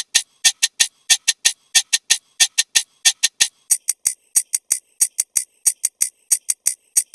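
A rapid, even run of short, sharp clicks, about five a second, that grows quicker and brighter a little past halfway.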